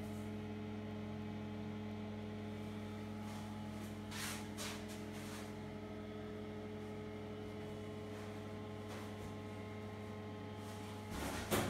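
Steady low electrical hum made of several even, unchanging tones. Brief rustles come about four seconds in and a louder one near the end.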